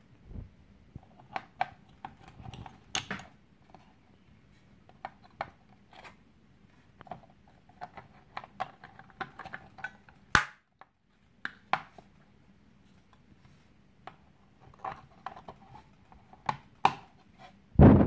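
Hard 3D-printed plastic parts of a toothpick box being handled and pressed together: scattered light clicks and taps, with a sharper snap about ten seconds in. A louder bump and rubbing near the end.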